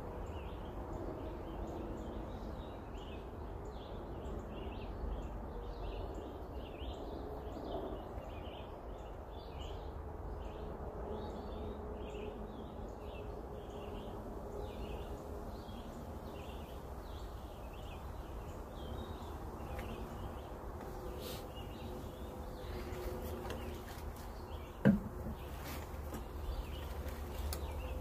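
Summer woodland ambience: repeated short high chirping over a steady low rumble, the chirping fading out about two-thirds of the way through. A single sharp knock about 25 seconds in is the loudest sound.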